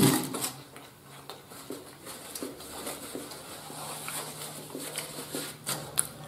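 Quiet mouth and hand noises of a man chewing a taco and wiping his mouth with a paper napkin: small scattered clicks and rustles. A faint low steady hum comes in about halfway through.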